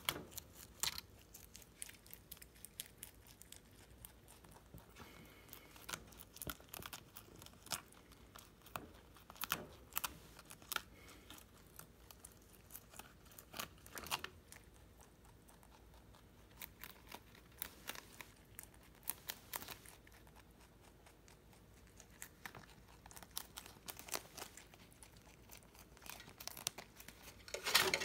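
A Holland Lop rabbit chewing and tearing a cabbage leaf, with irregular crisp crunches and rustling of the leaf. A louder cluster of knocks and rustling comes near the end.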